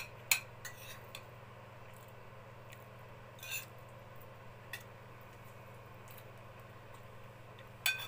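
Cutlery clicking against a plate a few times while eating, the sharpest click just after the start, a short scrape about three and a half seconds in and a couple more clicks near the end, over a steady low hum.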